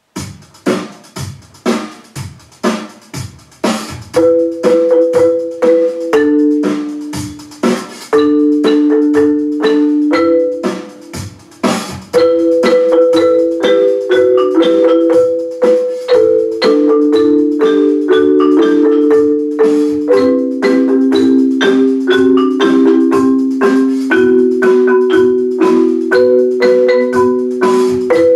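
Mallet percussion ensemble playing on marimbas. For about four seconds there are separate sharp mallet strikes. After that come sustained rolled chords whose pitches shift every second or two, with quick mallet strokes over them.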